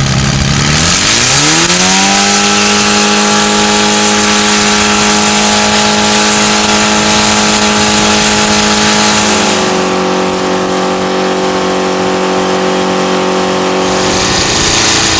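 Car engine revving up about a second in, then held at high revs with a steady note and hiss. The revs drop back right at the end.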